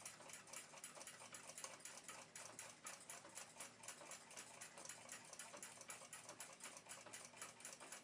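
Faint, steady clock ticking at about five ticks a second.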